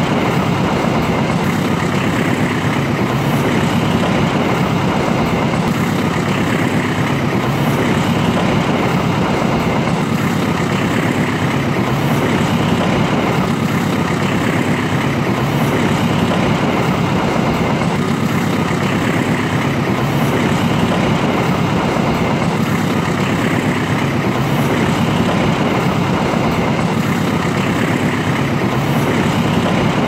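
Moving passenger train: a steady, even rumble of the train running along the track.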